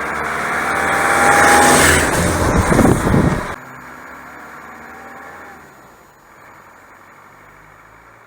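A motor vehicle's engine running loudly for about three and a half seconds, then cut off suddenly to a much quieter steady hum.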